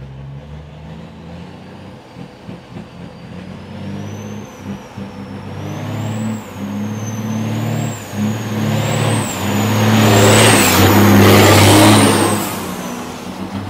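Diesel truck engine pulling under load, its pitch shifting in steps, with a high wavering whistle above it. It grows louder to a peak about ten seconds in, then drops away as the truck passes.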